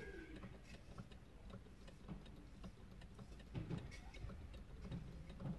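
Faint, irregular ticking and clicking from the rocking mechanisms of small solar-powered dashboard figures moving in a parked car. There are a couple of soft low thumps, about three and a half seconds in and near the end.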